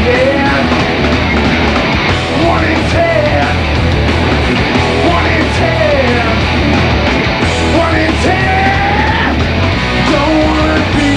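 Rock band playing live and loud: distorted electric guitar, bass and drums driving steadily, with bending, gliding lead notes over the top.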